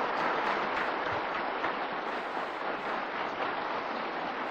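Seated assembly of deputies applauding, the clapping slowly dying down.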